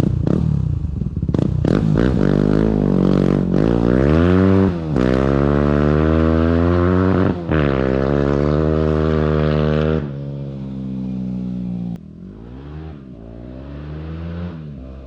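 Yamaha WR250R's single-cylinder four-stroke engine breathing through an FMF Power Core 4 exhaust with the spark arrestor removed, revved repeatedly: a few quick blips, then longer climbs in pitch that drop off sharply. About two-thirds of the way through it falls to a lower, quieter note, with one more rise and fall near the end.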